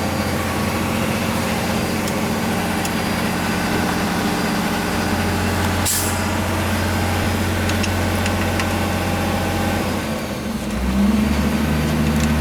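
A steady, low mechanical hum like an idling engine or motor runs throughout. There is one sharp click about six seconds in, and the hum's pitch shifts near the end.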